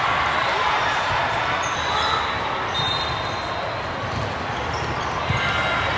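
Busy volleyball hall: a steady babble of many voices echoing in a large room, with repeated thuds of volleyballs bouncing on the courts.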